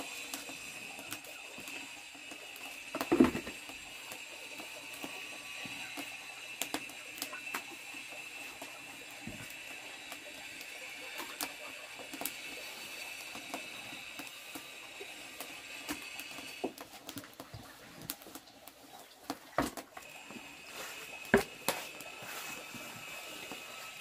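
Wooden paddle stirring thick pig bran in a large metal cooking pot, with scattered knocks and scrapes against the pot and a louder knock about three seconds in and again near the end. A steady high-pitched drone runs behind it and breaks off for a few seconds past the middle.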